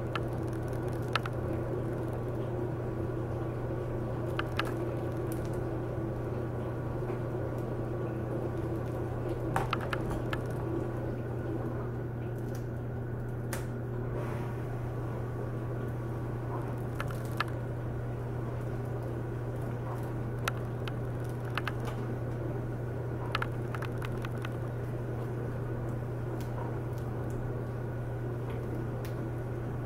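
Small plastic clicks and taps of laptop parts being handled, a few at a time, as the replacement screen's cable is plugged in and the screen is fitted. A steady low hum runs underneath.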